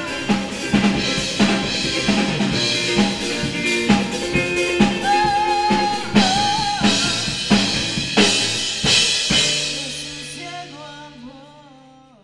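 Latin rock band music: a drum-kit beat with a singing voice, fading out over the last few seconds.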